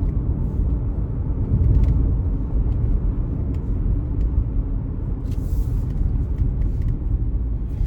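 Steady low rumble of a car on the move, road and engine noise heard from inside the cabin. A short hiss comes in about five seconds in.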